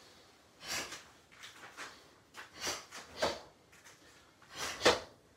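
Short, sharp breaths puffed out in time with repeated karate leg sweeps and kicks, about half a dozen at uneven spacing, the loudest near the end.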